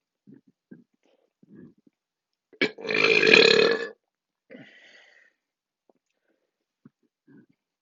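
A person burping: one long, loud belch about two and a half seconds in, lasting over a second, followed by a shorter, quieter burp. Faint short throat noises come before and after.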